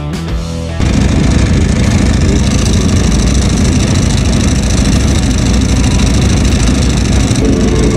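Intro music cuts off about a second in and gives way to a sports motorcycle engine running loud and steady, heard from on board.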